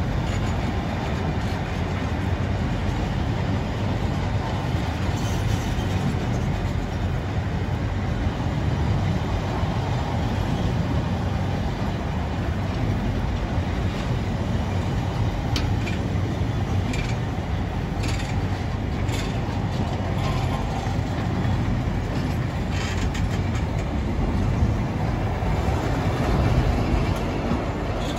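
Long freight train of car-carrier wagons rolling slowly through a station: a steady rumble of steel wheels on the rails, with occasional sharp clicks.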